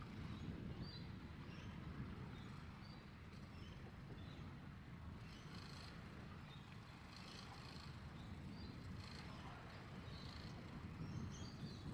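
Steady low wind and water noise around a small boat on choppy sea, with faint short high chirps, like birds calling, scattered throughout.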